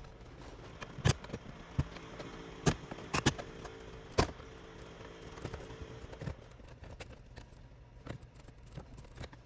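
Sharp plastic clicks and knocks from a truck's interior dash trim panel being worked loose from its push tabs. A handful of louder snaps come in the first half, with smaller taps after.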